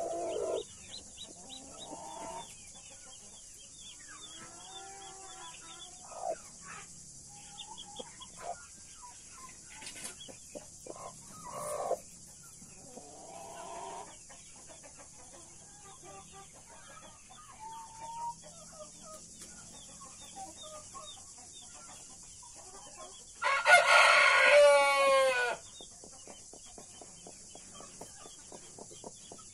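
Chicks peeping almost without pause and a hen clucking now and then around them. About two-thirds of the way through, a rooster crows loudly for about two seconds.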